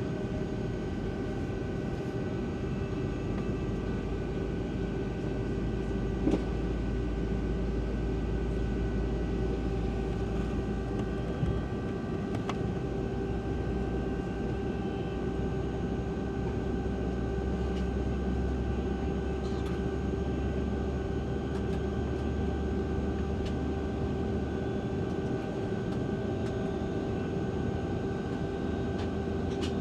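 Steady cabin noise inside a Boeing 757-200 on the ground before takeoff: a low rumble under a constant hum with a few steady tones. Two short knocks, about six and eleven seconds in.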